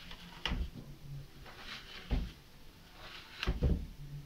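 Plastic cutting head of a home paper shredder lifted off its wastebasket: several knocks and scrapes of plastic on plastic, the loudest pair near the end.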